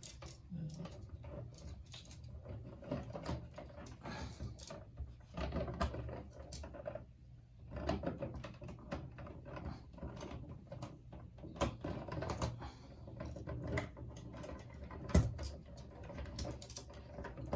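Irregular small clicks, taps and rustling of hands working with tools and electrical parts, with one sharper click about fifteen seconds in.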